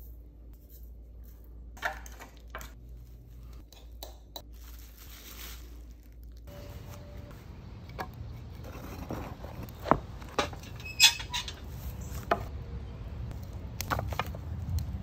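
Food-prep handling sounds: light clinks and taps around a glass mixing bowl and a brief rustle of spices being sprinkled, then, after about six seconds, a steady low rumble with sharp wooden knocks and clatter as split firewood is laid into a stone fire pit, the loudest knocks about ten and eleven seconds in.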